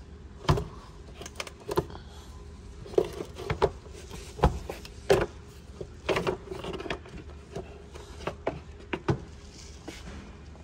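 Engine cover being unclipped and lifted off an engine: a series of irregular clicks, knocks and rattles, some in quick clusters.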